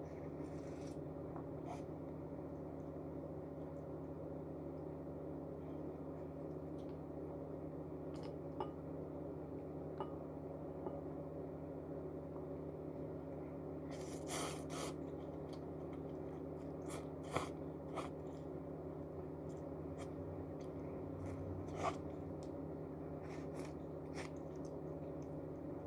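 Quiet eating of noodles: scattered light clicks and taps, with a small cluster about halfway through and a few sharper ones later, over a steady low hum.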